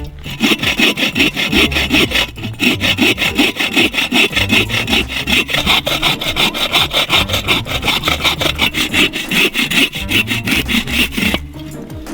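Hand saw cutting through a wooden log in quick, even back-and-forth strokes; the sawing stops near the end.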